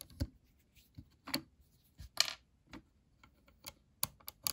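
Small clicks and taps of LEGO plastic parts as a minifigure's air-tank piece is worked off its neck and the head is handled, about half a dozen separate clicks, one slightly longer scrape about two seconds in.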